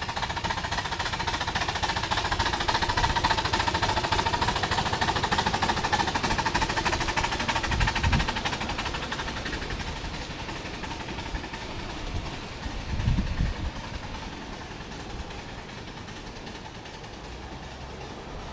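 Live-steam scale steam locomotive working hard under the load of a long train, its exhaust beating in a fast, even chatter that is loudest early and fades as it draws away. Two short low thumps stand out partway through.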